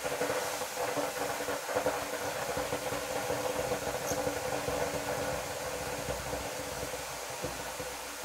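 Freshly washed amaranth leaves hissing and steaming in a hot, oil-free kadhai on a gas stove: a steady hiss with a low hum underneath that eases off slightly toward the end.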